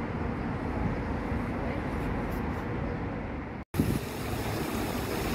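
Steady outdoor city noise of road traffic with faint voices. It drops out for an instant a little past halfway, then comes back with a short click.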